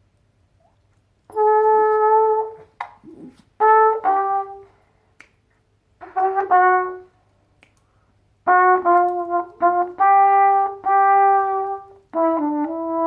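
Trumpet improvising a blues line in several short phrases with pauses between them, the later phrases made of longer held notes.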